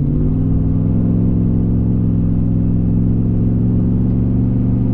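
Junkyard 5.3-litre LS V8 with a Truck Norris camshaft running under way in a 2005 Chevrolet Silverado. Its pitch steps up slightly just after the start and then holds steady.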